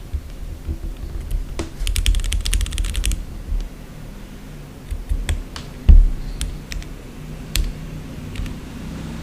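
Typing on an MW65 gasket-mount 65% mechanical keyboard with Gateron Milky Yellow linear switches and PBT keycaps, built without foam. A quick run of keystrokes comes about two seconds in, then scattered single key presses, with one heavier low thud near six seconds.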